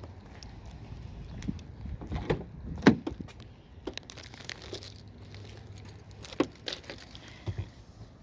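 Car keys jangling with a run of small clicks, and a sharp clack about three seconds in as the driver's door of a Dodge SUV is unlatched and swung open; more clicks and knocks follow as someone gets in.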